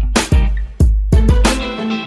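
Background music with a steady beat: drum hits over deep bass, with guitar-like plucked notes.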